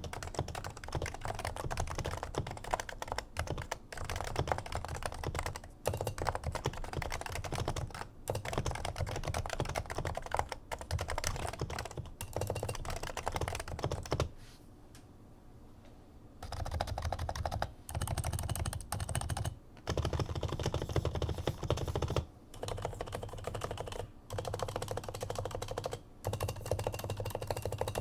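Continuous typing on a Topre Realforce R2 with 55g factory-silenced electro-capacitive switches, whose purple sliders carry a damping ring: fast runs of muted keystrokes in bursts of a couple of seconds with short breaks, and a longer pause about halfway through.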